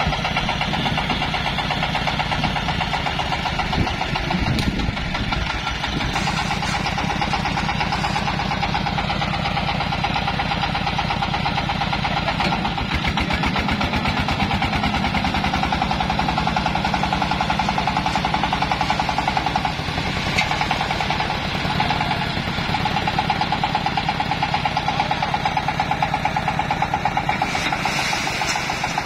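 Engine of a hydraulic dump carrier running steadily with a fast, even chugging pulse. It goes on running as the sand-loaded bed is tipped near the end.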